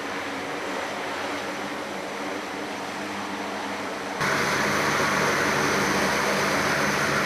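Four-engine turboprop transport aircraft running on the ground, its engines and propellers giving a steady whooshing drone. The sound gets louder and brighter all at once about four seconds in.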